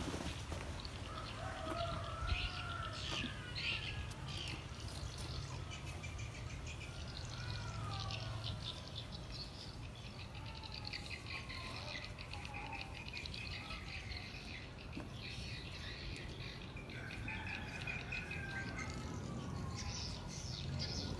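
Birds chirping and calling, short sliding calls mixed with quick high chirps, over a steady low hum.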